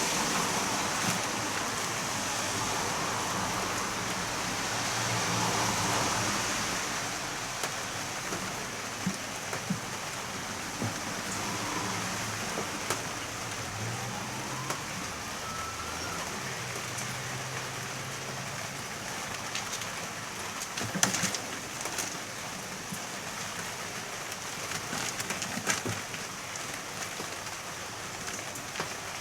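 Steady heavy rain falling, with drips tapping on hard surfaces and a few sharper knocks, the loudest cluster about two-thirds of the way through.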